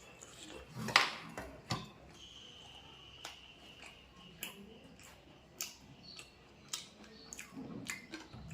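Close-up eating sounds of someone chewing a piece of fish: irregular wet mouth clicks and smacks, the loudest about a second in.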